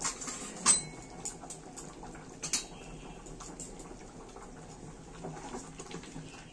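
Steel spoon clinking against an aluminium pot while stirring thick khichuri: a few sharp clinks, the loudest about a second in and another about two and a half seconds in, then softer scrapes and taps.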